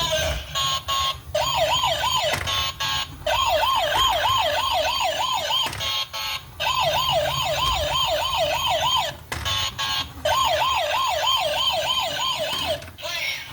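Toy RC police car's electronic siren sounding a fast warble, about four rises and falls a second, in several runs that stop and start again.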